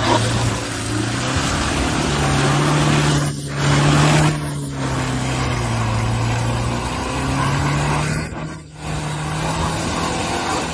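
Mercedes-Benz GLK260 SUV's engine running under steady load as it climbs a mud slope, its pitch rising and falling slightly, over a constant rush of tyres churning through mud.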